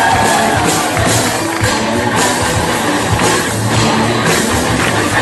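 Live rock band playing an instrumental passage, with drum kit and guitars and no vocals.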